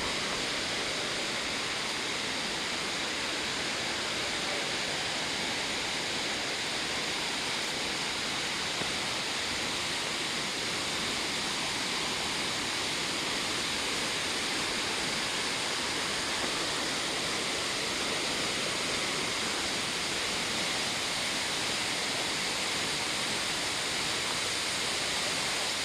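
A waterfall over 100 metres high: the steady, even rush of falling water, unchanging throughout.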